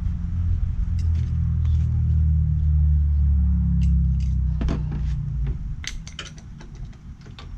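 Metal clicks and clinks of tools and screws being handled during a scooter teardown, thickest in the last three seconds. Under them runs a low steady rumble that fades out about five seconds in.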